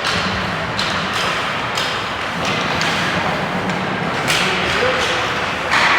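Ice hockey play in an arena: several sharp knocks and thuds of sticks, puck and boards over steady rink noise.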